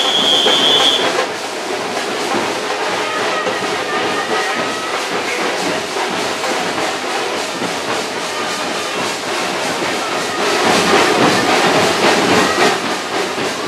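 Dense noise of a crowd in a street procession: many overlapping voices and movement, with a short high whistle-like tone in the first second and a louder swell about ten seconds in.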